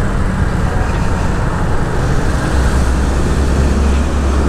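Small-displacement motorcycle engine running while the bike is ridden slowly in street traffic. A steady low rumble grows stronger about two and a half seconds in.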